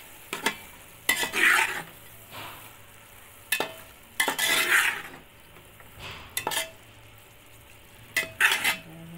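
Slotted steel spoon stirring and scraping minced meat with chopped tomatoes and green chillies around a steel pot, in separate strokes every second or two, over a steady sizzle of frying.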